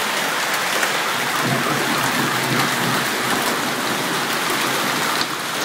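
Hailstorm: hail and rain falling steadily, a dense even hiss with scattered sharp ticks of stones striking surfaces.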